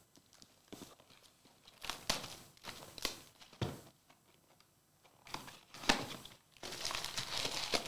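Foil trading-card packs crinkling and rustling as they are handled and shuffled on a mat, in short scattered bursts that thicken into a denser run near the end.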